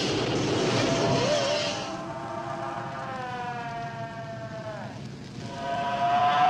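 Flamethrower fire rushing out and burning, then a shrill creature shriek of several stacked tones that bends downward and breaks off about five seconds in, then starts again louder near the end.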